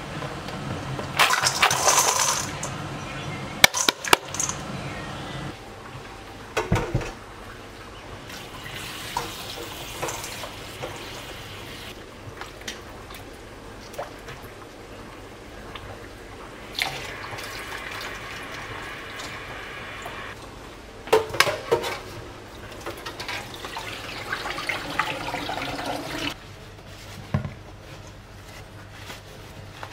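Water from a kitchen tap running in several short spells, splashing into the sink, with clicks and knocks of kitchen work in between.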